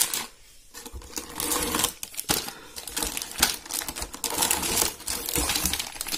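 Plastic-wrapped polycarbonate switch plates being handled and pulled from a cardboard box: the wrap crinkles and rustles, with a quick run of small clicks and knocks as the plates touch each other and the box.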